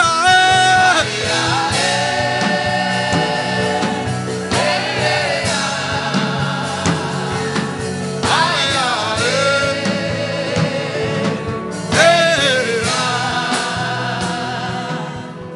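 Gospel worship song: voices singing long held phrases over instrumental backing, fading out near the end.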